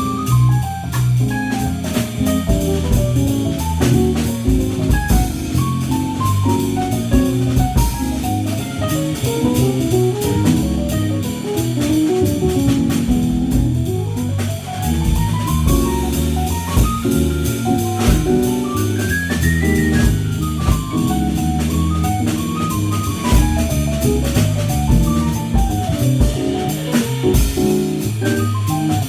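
Jazz trio of keyboard, electric bass and drum kit playing, the keyboard running quick melodic lines that climb and fall over a walking bass and cymbal-driven drums.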